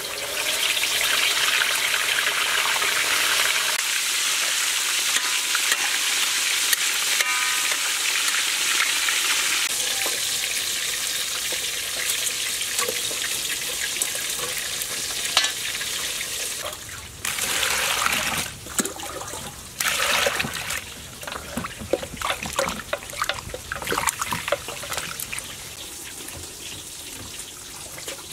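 A whole fish goes into hot oil in a wok and deep-fries with a loud, steady sizzle. About 17 seconds in, the sizzle gives way to irregular splashes of water as lettuce is washed by hand in a basin.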